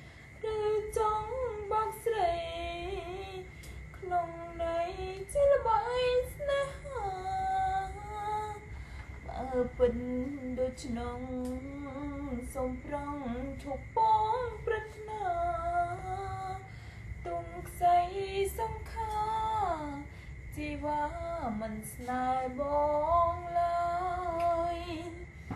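A woman singing a slow song solo, in phrases with short breaks between them.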